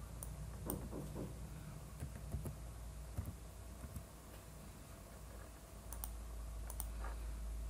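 Faint, scattered clicks of a computer keyboard and mouse: a quick cluster of key taps about a second in and a few more clicks near the end, over a low steady hum.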